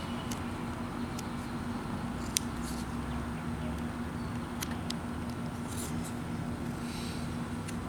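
Knife whittling wood: a few faint shaving scrapes and small clicks, with one sharp click about two and a half seconds in, over a steady low hum.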